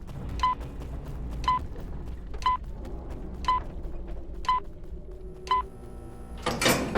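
Six short electronic beeps, one a second, all at the same pitch, then a sudden loud noisy burst near the end.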